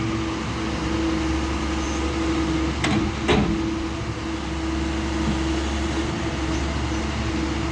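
Doosan DX140W wheel excavator's diesel engine running with a steady drone, broken by two sharp knocks about three seconds in.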